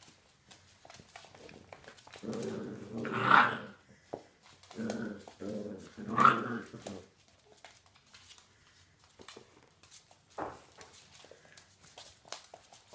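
Scottish terriers growling as they play tug of war with a cloth. There are two bouts of growling, about two and about five seconds in, each rising to one sharp, loud peak, with light scattered clicks between.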